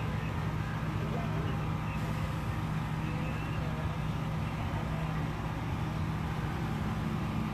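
Engines of pickup trucks and cars in a slow-moving procession, a steady low engine hum as they roll past.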